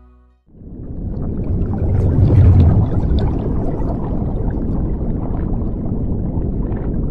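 Underwater rush of air bubbles: a burst of bubbling with a deep rumble swells in about half a second in, is loudest two to three seconds in, then settles into a steady underwater wash with fine bubble crackle.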